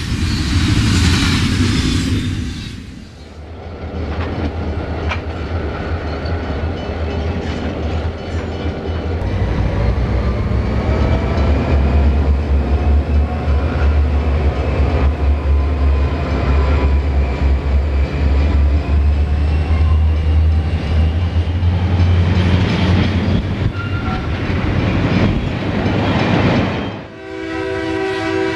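Several Santa Fe diesel locomotives pass working hard, a heavy, steady low engine rumble, after a few seconds of a double-stack container train rolling by. Near the end a locomotive horn sounds a steady chord at a grade crossing.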